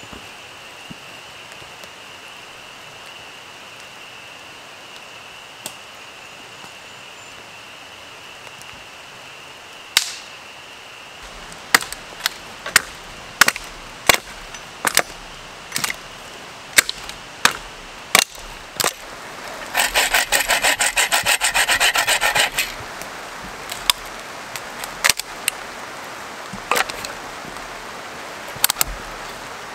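Hand saw cutting dead wood in quick back-and-forth strokes for about three seconds, the loudest part. Before and after it come scattered sharp knocks and snaps of dry branches being handled.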